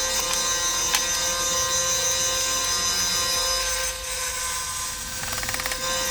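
Parkside 350 A1 bandsaw running with a steady motor whine while its blade cuts through wood; the cutting noise eases about four seconds in.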